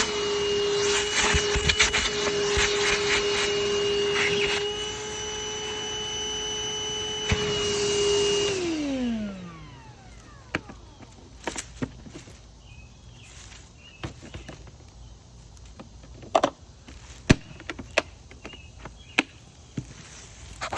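Wet/dry shop vacuum running with a steady whine, sucking out an air conditioner's condensate drain line. Its tone shifts slightly about halfway through its run. About eight seconds in it is switched off, and the motor winds down in pitch. Scattered clicks and knocks follow.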